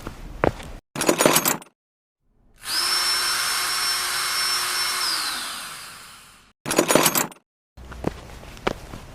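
A small electric motor whirs steadily for about three seconds, then is switched off and winds down, its pitch falling as it dies away. Short bursts of crackling clatter come before and after it.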